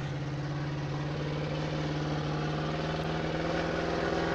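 A loaded logging truck's engine running steadily under load, its pitch and loudness rising slightly from about a second in.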